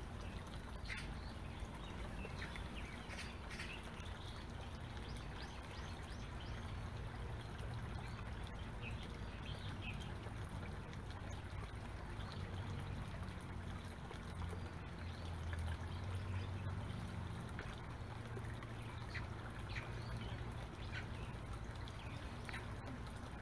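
Steady outdoor background rumble, strongest low down and swelling slightly in the middle, with faint, scattered short high chirps over it.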